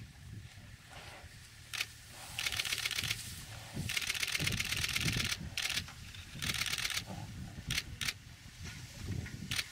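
Rapid bursts of camera shutter clicks, each a second or so long and stopping abruptly, with a few single clicks between them, over a low rumble.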